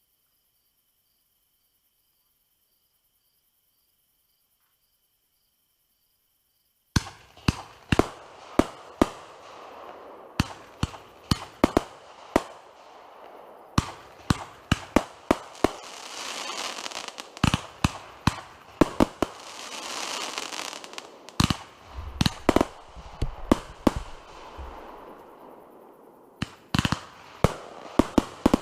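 Near silence for the first seven seconds, then a fireworks display going off: a rapid series of sharp bangs, several a second, with crackling between them that swells midway.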